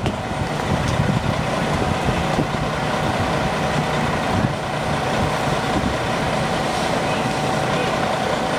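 Idling diesel coach buses: a steady engine hum with a constant whine on top.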